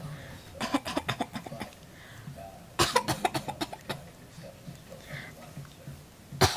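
A young boy fake coughing: quick runs of short, forced coughs, in two bouts about a second long each, and a third starting right at the end.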